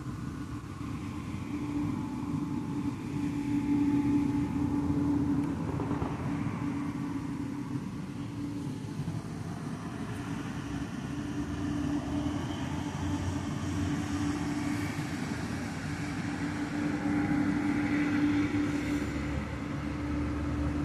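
Road traffic going by, swelling twice as vehicles pass, over a steady low hum.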